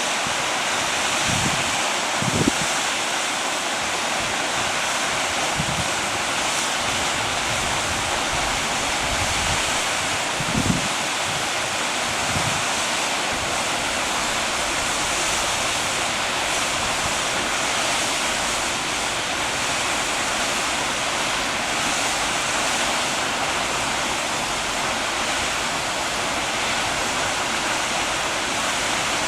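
Waterfall pouring steadily, a constant even rush of falling water. A few brief low thumps of wind on the microphone come in the first dozen seconds.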